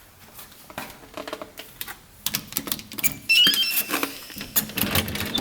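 Clicks and handling clatter, with a quick run of short electronic beeps stepping up and down in pitch about three seconds in, then louder knocks and clatter near the end.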